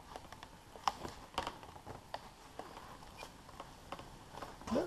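Scattered light clicks and taps of an RC glider's EPO foam wing and plastic fuselage being handled and pressed together, with a short rising squeak near the end.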